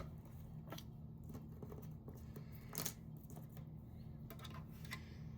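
Paper and small craft pieces being handled on a desk: a few light clicks and taps over a steady low hum.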